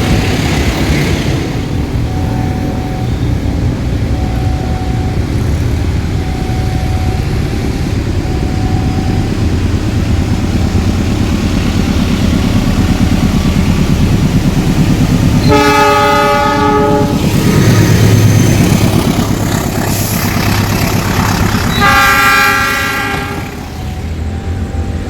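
GE diesel-electric locomotive running with a steady heavy engine rumble that swells past its loudest just after midway, sounding its air horn twice, each blast about a second and a half long and some six seconds apart.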